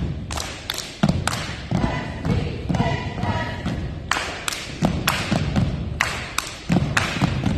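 Step team stepping: stomps on a gym floor, claps and body slaps struck together in an uneven, changing rhythm, each hit a sharp crack over a low thud.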